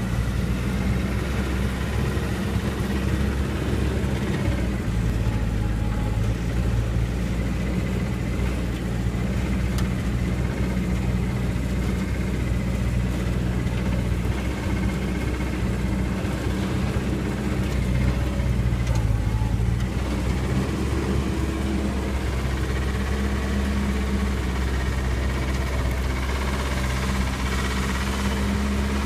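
1948 Willys CJ-2A jeep's four-cylinder flathead engine running at low speed as it drives over rough ground, a steady low drone whose note shifts about twenty seconds in.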